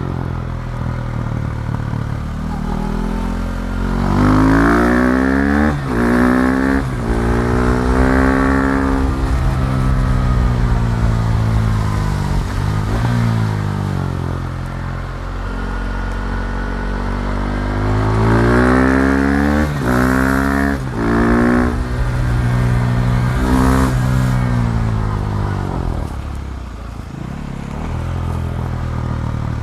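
KTM Duke 390's single-cylinder engine pulling hard twice, the revs climbing with brief dips at quick gear changes, then falling back as the bike slows on the engine.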